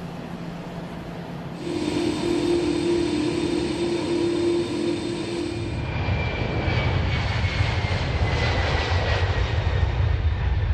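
Airbus Beluga ST's GE CF6 turbofan jet engines. A steady engine whine with fixed high tones first, then from about six seconds in the deep rumble of take-off thrust as the aircraft rolls down the runway, with a high whistle falling slowly in pitch as it goes by.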